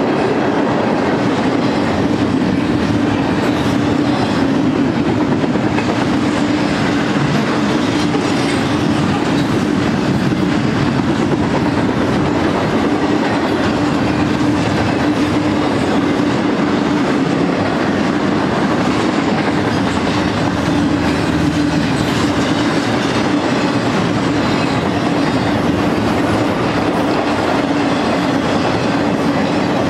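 Steel wheels of a long BNSF intermodal freight train rolling past, first double-stack well cars and then trailers on flatcars. The sound is a loud, even rolling noise with a constant hum underneath, and it does not let up.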